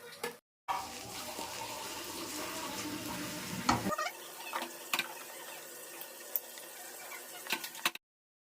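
Egg fried rice sizzling in a pan as it is stirred, a steady hiss with several sharp clinks of the spatula against the pan.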